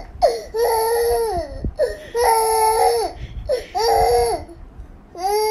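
A baby crying: three wailing sobs with short breaths between, and another wail starting near the end.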